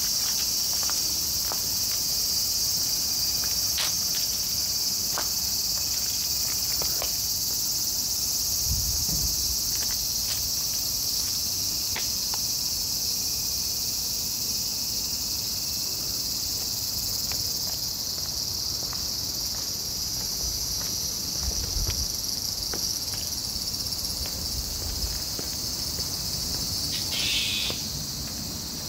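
A steady, high-pitched chorus of insects shrilling without a break, with a few faint clicks and an occasional low rumble.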